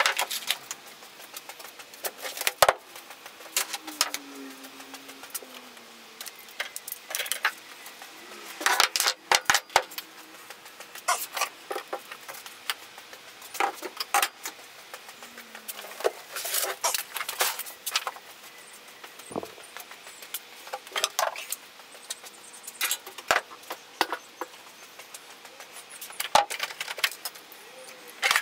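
Irregular clinks, clatters and knocks of tools, cans and other metal items being picked up, moved and set down on a wooden workbench.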